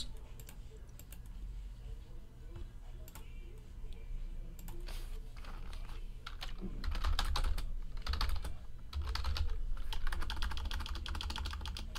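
Typing on a computer keyboard: scattered light key clicks that come thicker in the second half, with a low rumble underneath.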